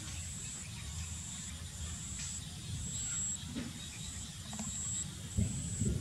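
An insect trilling high and thin in repeated bursts of roughly half a second to a second, over a low steady rumble. Near the end, louder low rustling and bumps.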